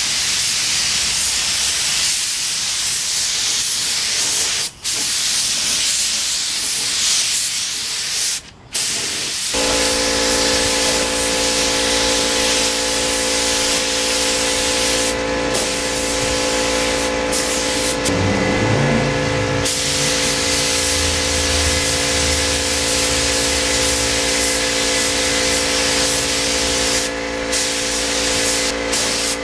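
Gravity-feed spray gun hissing as it sprays clear coat onto a motorcycle fairing, the trigger let go briefly a few times. About nine seconds in, a steady machine hum with several held tones starts and runs on under the hiss.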